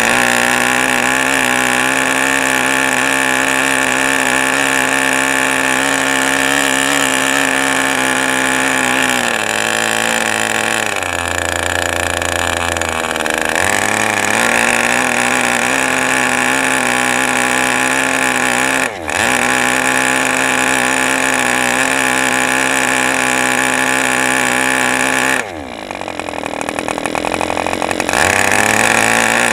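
Model airplane glow engine with propeller running at high speed on a counterfeit OS #8 glow plug. Its pitch sags for a few seconds about a third of the way in, it cuts out for an instant near the middle, and near the end it drops sharply as if about to die, then picks back up: the counterfeit plug is not keeping the engine running well.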